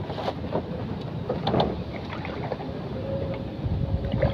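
Wind buffeting the microphone over open water, a steady low rumble with scattered small knocks. A faint steady hum comes in about three seconds in.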